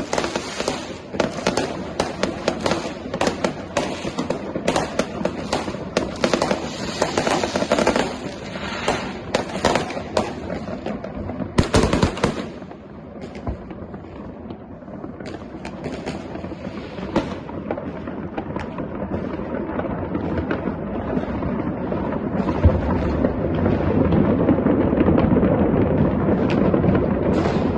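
Fireworks going off: a dense run of crackling bangs for about the first twelve seconds, then scattered cracks over a steady noise that swells louder toward the end.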